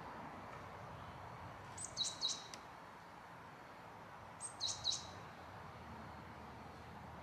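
A small bird chirping out of sight: two short runs of two or three quick, high, downward notes, about two seconds in and again near five seconds, over a steady faint outdoor hiss.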